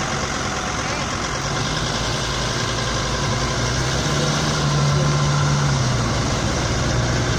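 4x4 engines running at low speed, a steady low hum that swells slightly about four seconds in.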